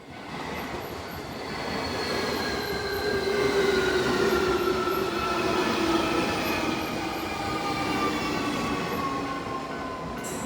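Electric train running, its noise carrying a whine of several tones that falls slowly and steadily in pitch.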